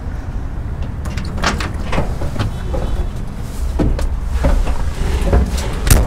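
People climbing into the cab of a vintage Ford pickup truck: a series of knocks and clunks from the door, the seat and the people moving, the loudest near the end, over a steady low rumble.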